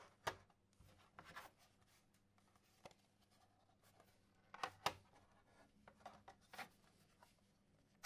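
Film plate holders for a large format camera being handled: scattered light clicks, taps and rubbing as they are picked up, turned over and set down. The loudest is a pair of clicks about halfway through.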